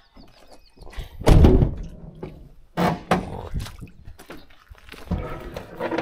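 Van door slammed shut with a loud thunk about a second in, followed by a few scuffing footsteps on gravel.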